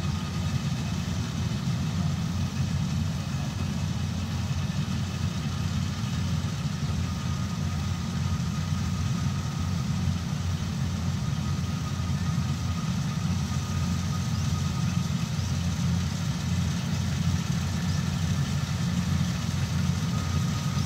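Kubota rice combine harvester's diesel engine running steadily under load as it cuts and threshes rice in soft, muddy ground: an even low rumble with a faint steady whine over it.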